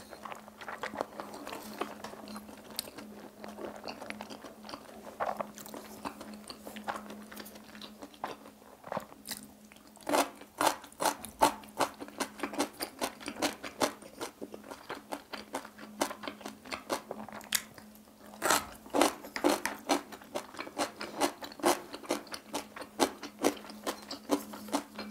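Close-miked wet chewing and mouth smacking of a large mouthful of food, a dense run of short sticky clicks that grows louder and quicker about ten seconds in.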